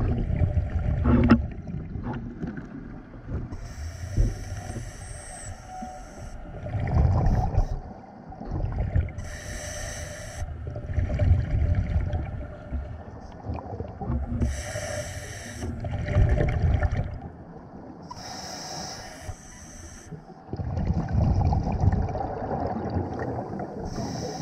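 Scuba diver breathing through a demand regulator underwater, about five breaths. Each inhale is a short hiss, and each exhale is a longer burst of low, rumbling exhaust bubbles.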